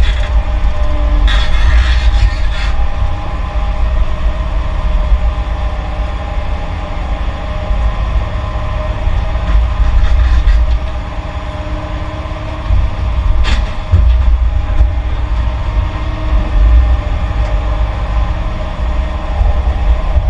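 Heavy diesel earthmoving machinery, such as an excavator and dump trucks, running steadily with a deep rumble. There are scraping clatters in the first few seconds and a single sharp knock about halfway through.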